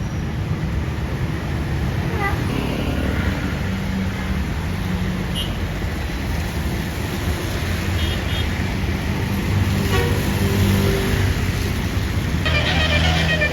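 Road traffic with bus engines running. About a second before the end, a bus's Basuri multi-tone air horn starts playing a telolet melody.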